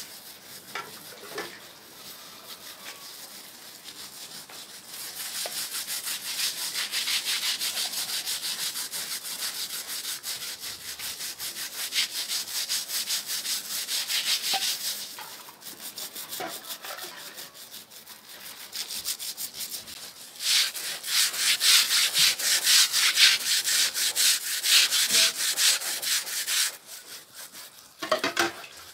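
Fast, rhythmic scraping strokes that come in long stretches with quieter pauses between them, loudest in the second half.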